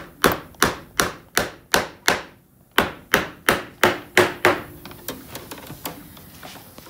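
Upholstery tack hammer driving tacks into a wooden chair seat rail to anchor the spring-tying twine: quick, sharp strikes about three a second, with a brief pause about two seconds in. The strikes stop about four and a half seconds in, followed by quieter small knocks and rubbing.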